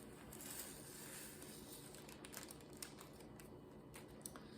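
Faint crinkling of small plastic baggies of diamond-painting drills being handled and emptied, with a few soft ticks.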